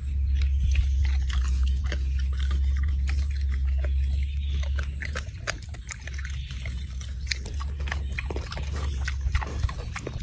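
Pig chewing and crunching food, with many short irregular crunches over a steady low rumble.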